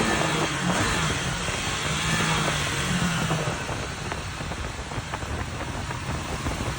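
Honda Tornado single-cylinder motorcycle running at speed, its engine tone faint under heavy wind rush on the microphone, easing off slightly in the second half.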